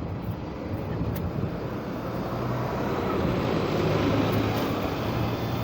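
A bus driving past: a steady engine hum and road noise that swell to their loudest about two-thirds of the way through, then begin to fade.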